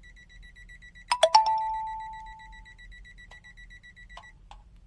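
CZD FS898 multimeter's buzzer beeping rapidly and steadily in high pitch while its test pen is on the live mains wire: the live-wire (hot wire) alarm. The beeping cuts off near the end. About a second in, three sharp clicks, the loudest sounds, are followed by a ringing tone that fades over a second or so.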